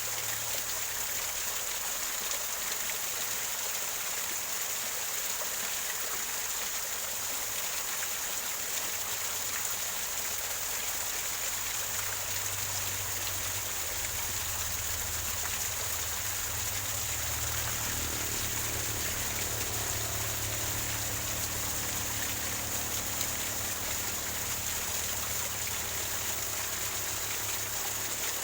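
Small waterfall gurgling over rocks, a steady, unbroken rush and trickle of running water.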